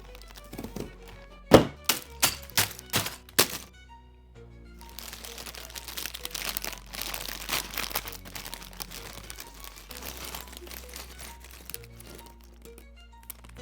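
A quick run of sharp clicks and knocks, the loudest about a second and a half in, then several seconds of plastic crinkling and rustling, typical of LEGO pieces and their plastic bags being handled at the start of a build. Background music plays underneath.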